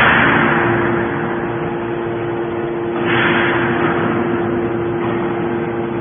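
Hydraulic scrap metal baler running: a steady hum from its hydraulic power unit, with two hissing surges, one at the start and another about three seconds in, each fading over about a second.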